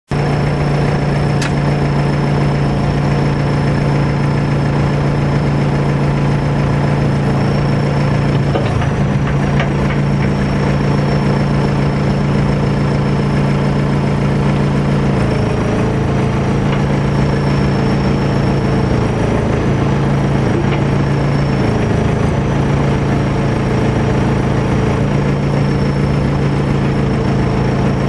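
Caterpillar 420 backhoe loader's diesel engine running steadily, heard from inside the cab, with a thin high whine over the engine hum. The engine note shifts slightly about 9 and 15 seconds in.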